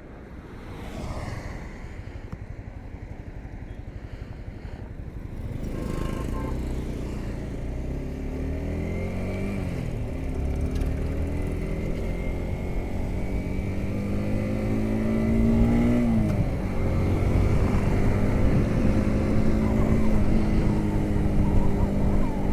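Yamaha R15M's 155 cc single-cylinder engine under a rider, pulling harder about five seconds in, its pitch climbing and then dropping at two upshifts, then running steadily at speed.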